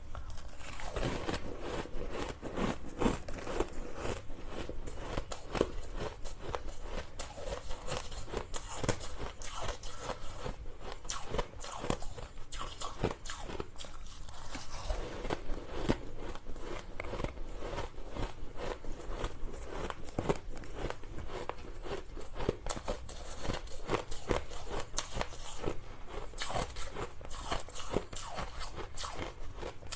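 Shaved ice packed into balls being bitten and chewed: a dense, irregular run of crisp crunches and crackles as the ice breaks between the teeth.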